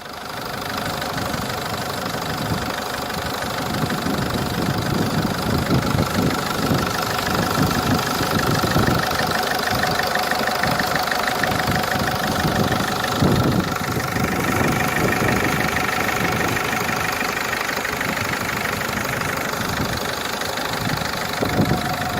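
Ford Fiesta 1.4 TDCi four-cylinder diesel engine idling with a rattling knock, the sign of a defective pulley.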